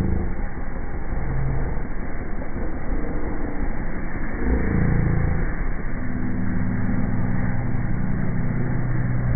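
Motor vehicle engine running steadily under road and wind noise, its low hum shifting pitch a few times.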